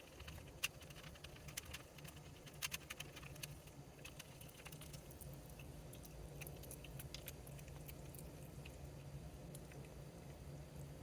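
Maine Coon cat eating wet cat food: faint, irregular wet clicks of licking and chewing, thickest in the first few seconds and sparser after.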